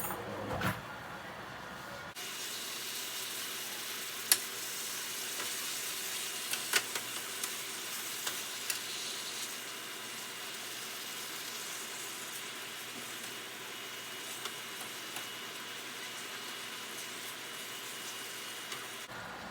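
Ground beef frying in a hot pan: a steady sizzle that starts about two seconds in, with a few sharp pops and crackles.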